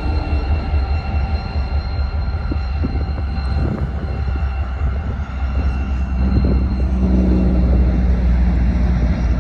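Freight train rolling past: a loud, steady, deep rumble, with faint steady high-pitched tones that fade out about four seconds in.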